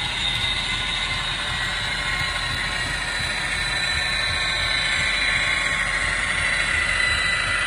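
HO scale EMD SD45 model locomotive running along the track: a steady whir of its motor and gearing with the wheels rolling on the rails, and a high whine that slowly falls in pitch.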